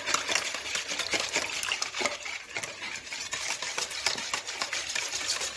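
Wire whisk beating egg and milk in a bowl: a rapid, continuous clatter of the wires through the liquid and against the bowl.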